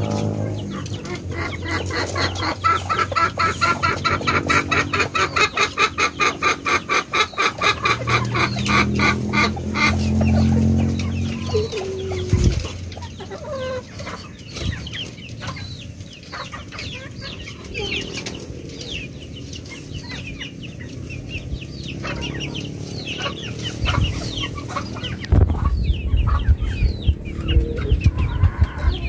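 Chickens clucking: a fast, even run of clucks for about the first ten seconds, then scattered short high chirps.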